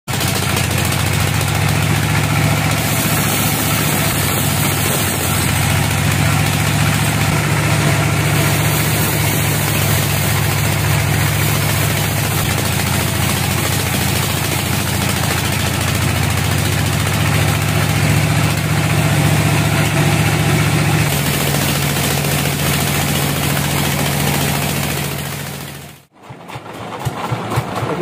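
A band sawmill running with a steady, loud low hum that fades out near the end.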